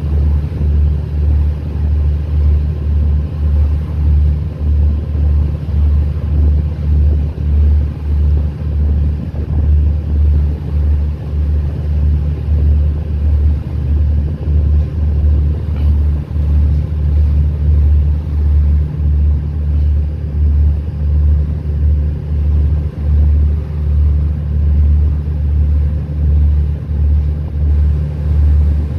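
Boat engine running steadily, heard from on board the moving boat: a deep low hum that swells and dips about once a second.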